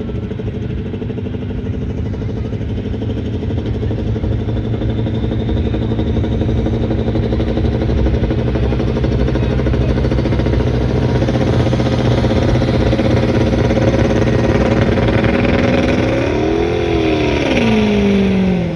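Diesel pulling pickup's engine running hard at the starting line, building in loudness as black smoke pours from its stacks. About three-quarters of the way through it revs up and back down, and near the end its pitch drops further.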